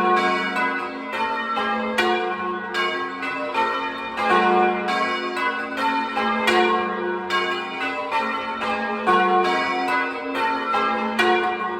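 A ring of five church bells (tenor about 15 cwt, in F sharp) being rung in changes, heard close up in the belfry. The bells strike one after another in a rapid, even stream, their tones overlapping and ringing on.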